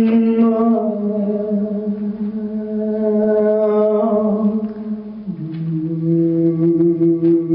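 A woman's voice singing long, wordless chant-like notes: one note held for about five seconds, then a step down to a lower note that is held again.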